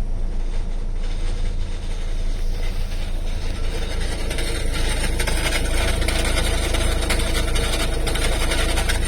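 Mazda RX-8 Type S's Renesis rotary engine idling, with a fast, fine ticking noise that comes with the clutch disengaged and gets stronger about four seconds in. The noise's cause is unknown, even to Mazda.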